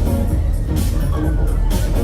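Loud music with a heavy bass, with sharp bright hits recurring every half second or so.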